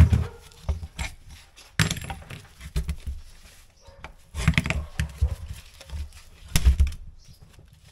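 Irregular knocks and clunks of tools and parts being handled, with a handful of sharp strikes and a cluster of them about halfway through.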